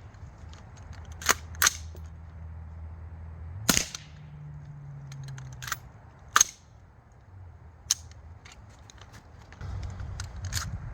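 Suppressed 5.56 AR-15 firing subsonic rounds: a handful of sharp cracks and clacks spaced one to three seconds apart. The subsonic loads are too weak to cycle the action.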